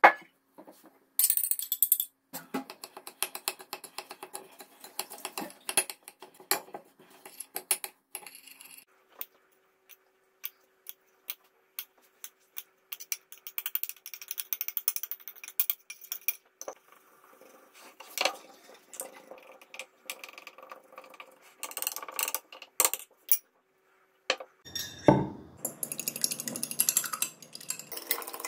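Kitchen utensil sounds: a metal spoon scraping and tapping as crushed biscuit crumbs are pushed off a ceramic plate into a glass baking dish, many small clicks and scrapes. Near the end, a fork beats eggs quickly against a glass bowl.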